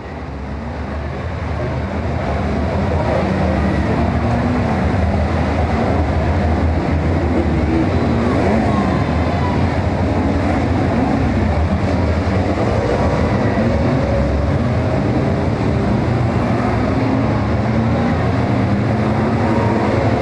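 A pack of saloon stock car engines running and revving together, a dense steady din with many pitches rising and falling. It fades up over the first couple of seconds.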